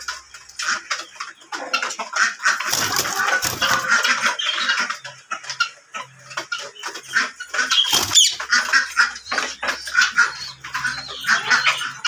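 Indian ringneck parakeets chattering in their cage: a busy, continuous run of short, choppy calls.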